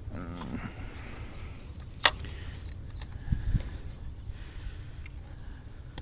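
Handling noises during work on the ignition coil packs: one sharp click about two seconds in, then two dull thumps a second or so later, over a low steady rumble.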